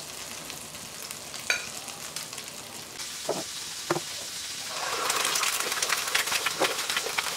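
Bacon sizzling in its own rendered fat in a frying pan, with a few light knocks. About five seconds in a louder, crackling sizzle starts as an egg fries in hot oil.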